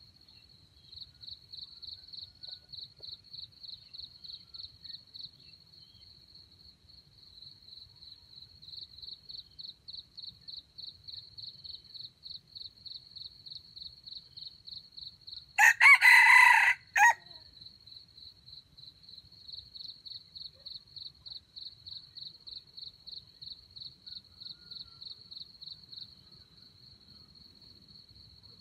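A red junglefowl rooster crows once, loud and about a second and a half long, about halfway through. Under it an insect keeps up a quick, pulsing high chirp.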